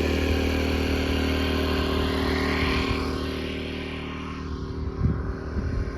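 Small portable gasoline generator running at a steady speed after a choked start, growing somewhat fainter over the last few seconds.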